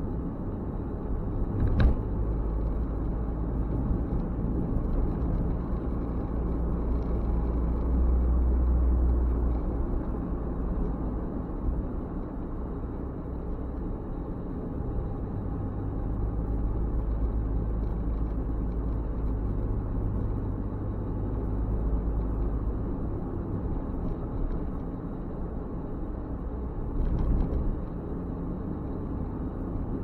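Car cabin noise while driving: a steady low rumble of engine and tyres on the road, with a sharp knock about two seconds in and a brief louder bump near the end.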